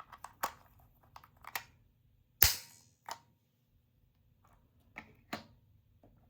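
Small plastic toys being handled and clicked: a scattering of light clicks and taps, with one sharp crack about two and a half seconds in that dies away over about half a second.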